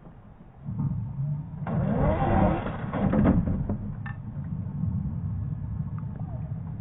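Scale RC crawler (Land Rover Defender 110 body) driving up a rock ledge, its electric motor and gearbox whining. The whine starts about half a second in, is loudest with pitch rising and falling as the throttle is worked around two to three seconds in, then settles to a steadier drone.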